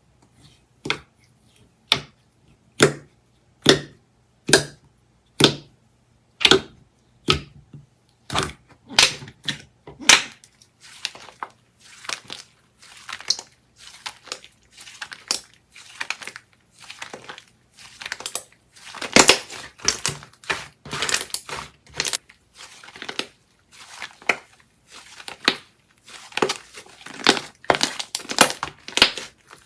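Slime being pressed and squeezed by hand, giving sharp crackling pops, about one a second at first, then quicker and more tangled from about ten seconds in.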